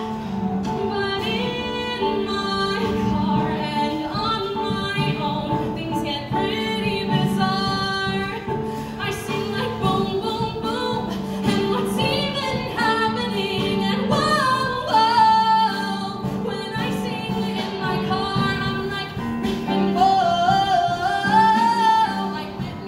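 A woman singing solo into a microphone over instrumental accompaniment, her voice climbing to higher, louder held notes near the end.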